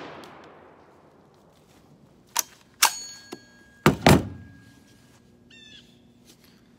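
The tail of a shotgun blast dies away, followed by a series of sharp metallic clicks and clacks and then two loud knocks as the Panzer Arms AR12 semi-automatic shotgun is handled around its magazine and action. A bird calls faintly near the end.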